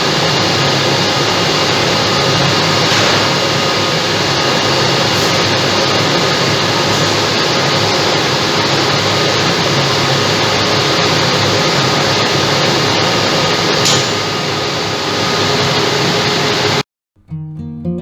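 Dump truck engine running steadily under a loud, even noise with a few faint steady tones. It cuts off abruptly near the end, and acoustic guitar music starts.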